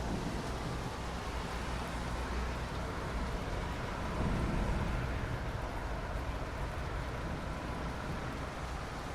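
Steady rain falling, an even hiss over a low rumble that swells for about a second some four seconds in.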